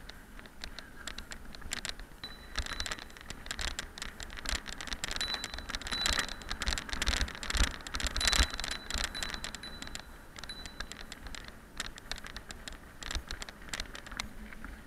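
Mountain bike riding over a loose gravel track: tyres crunching on the stones and the bike rattling with rapid, irregular clicks and knocks, busiest and loudest around the middle.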